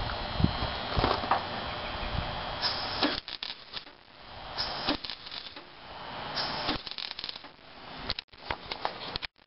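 MIG welder's arc crackling steadily for about three seconds, then in several shorter bursts with pauses between them.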